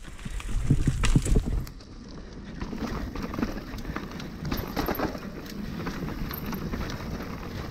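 Hardtail mountain bike rolling over a rough dirt and rock trail: tyres crunching and the frame and chain rattling with many small clicks. Wind buffets the microphone in the first second or two.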